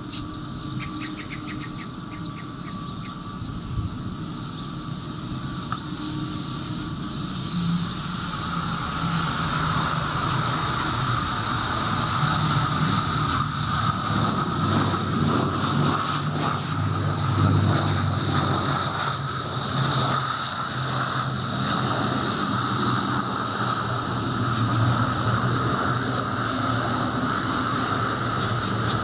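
ATR 72-600 turboprop landing and rolling out on the runway: the steady whine and rumble of its two Pratt & Whitney PW127 engines and propellers, growing louder about a third of the way in and staying loud as it rolls closer.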